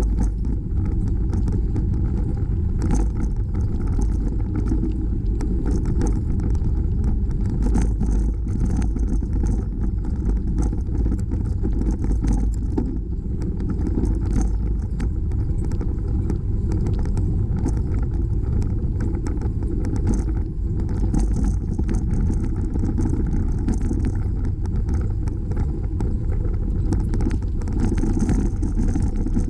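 Steady low rushing of wind buffeting the microphone of a camera on a moving bicycle, mixed with tyre rumble on the pavement and frequent small rattles and knocks from riding over the surface.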